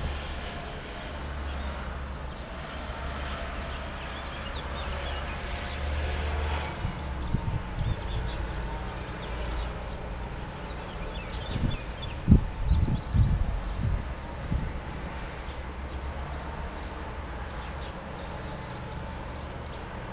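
Outdoor ambience: a thin, high chirp repeats evenly about twice a second over a steady low rumble, with a few loud low thumps about twelve seconds in.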